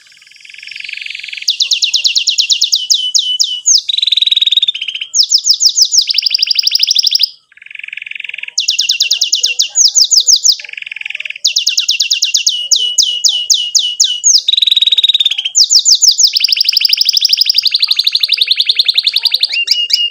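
Domestic canary singing a long, loud song of rolling trills: phrases of fast repeated high notes, one after another, with a brief break about seven and a half seconds in.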